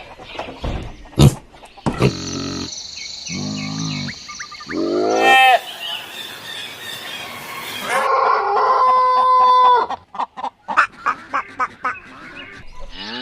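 A string of different farm-animal calls cut one after another, among them chicken and bird calls, with short pitched calls, a held two-tone call about eight seconds in, and sharp clicks at the start and near the end.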